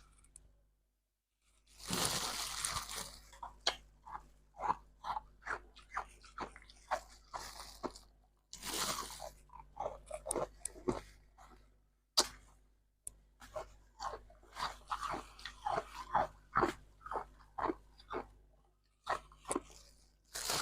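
Ice, shaped ice roses and freezer frost, bitten and chewed close to the microphone. A long crunching bite about two seconds in, another around nine seconds and a sharp one around twelve seconds are each followed by a run of quick, shorter chewing crunches.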